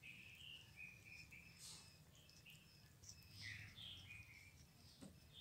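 Faint small birds chirping: scattered short, high notes, some gliding in pitch, over a low steady hum.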